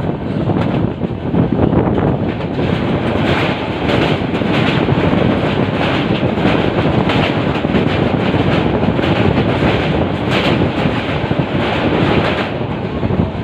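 Passenger train running at speed, its coach wheels rumbling steadily on the track. From about three seconds in until near the end there are repeated clacks as it crosses a steel truss bridge.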